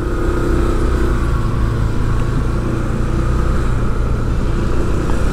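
Street traffic: a motor vehicle engine running steadily with a low hum.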